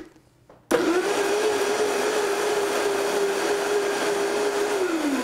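Countertop blender grinding soaked rolled oats in water: switched on suddenly under a second in, the motor runs at a steady high speed, then is switched off near the end and its pitch falls as it winds down.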